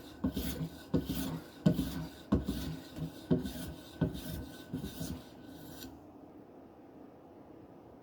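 Quick, rhythmic rasping strokes of a knife edge against a hard polymer strop charged with diamond emulsion in oil, about one and a half strokes a second. The strokes stop about three quarters of the way through.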